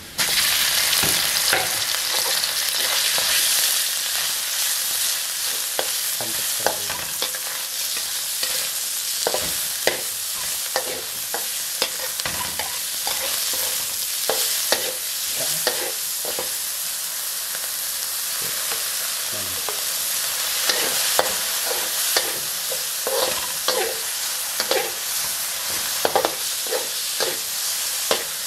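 Sliced raw meat hitting a hot wok of frying garlic, setting off a sudden loud sizzle that keeps going as it is stir-fried. A metal spatula scrapes and clinks against the steel wok many times throughout.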